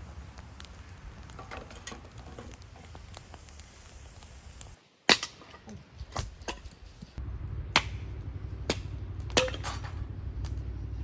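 Sharp clicks and knocks of camp cookware and utensils being handled, scattered irregularly over a low steady rumble.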